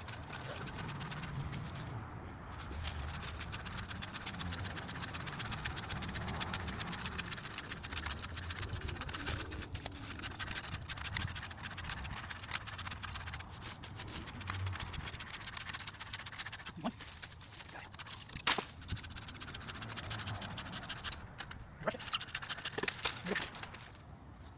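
Pruning saw cutting through a tree branch: a steady run of rapid rasping strokes. A single sharp knock comes about eighteen seconds in.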